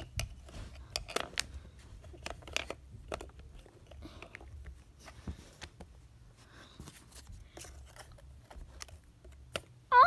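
Scattered light clicks and taps of plastic construction tiles being touched and moved by hand, irregular and mostly faint, with a few sharper clicks.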